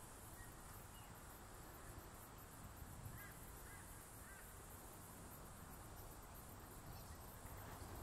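Near silence: quiet outdoor ambience with a faint steady high hiss and three faint short bird notes a little before the middle.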